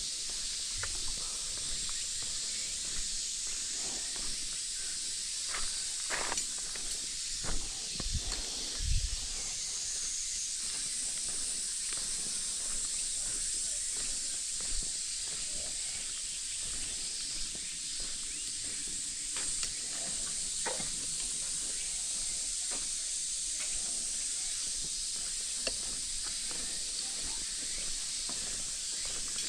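Steady cicada chorus, a high even drone, with the crunch of footsteps on gravel. A few heavier low thumps come about seven to nine seconds in.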